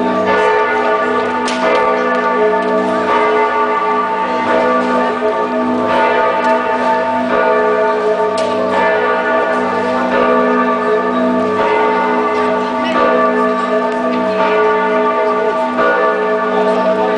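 Bells of Giotto's Campanile, the bell tower of Florence Cathedral, ringing together. Many overlapping tones hang in the air, with fresh strokes every second or two.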